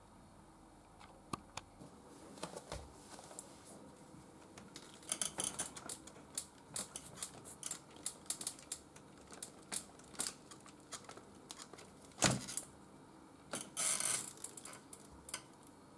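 Plastic clicks and rattles of a stroller's front swivel wheel being worked off its mount after its release latch is pressed, with one louder knock about twelve seconds in and a short scraping rustle just after.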